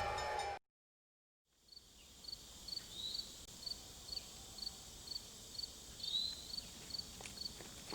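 The tail of a train sound cuts off abruptly, a second of silence follows, then faint outdoor ambience. A cricket chirps steadily, about two to three short high chirps a second, and a bird gives a short rising call twice.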